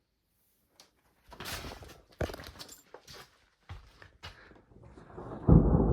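Scattered footsteps, shuffles and knocks of someone climbing into an old homestead cabin. Near the end a loud, low rumble sets in.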